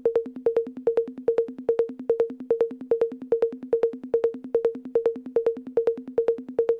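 Electronic percussion loop: two pitched drum hits, one high and one low, alternating in a steady rhythm of about five hits a second. It stops abruptly at the end.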